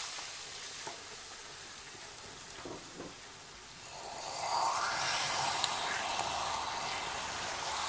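Hot melted sugar sizzling in a nonstick pan as water is poured into it and bubbles up. The hiss eases off a little, with a few light clicks, then grows louder again about four seconds in as a wooden spatula stirs the mixture.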